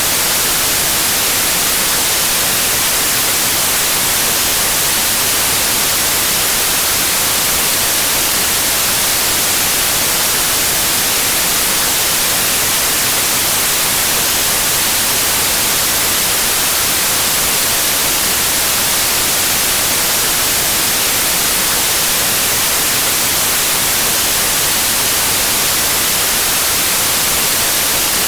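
Analog TV static: a loud, steady hiss of white noise, heavier in the highs, the sound of a television with no signal.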